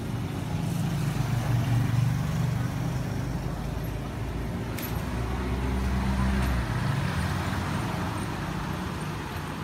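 Busy street background: a steady low traffic rumble with faint voices, and a sharp clink about halfway through.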